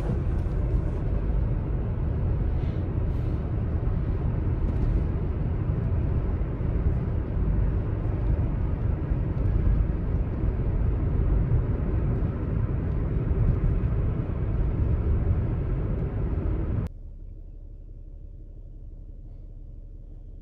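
Steady road and engine rumble heard inside a moving car's cabin. It cuts off suddenly near the end, leaving only a faint low hum.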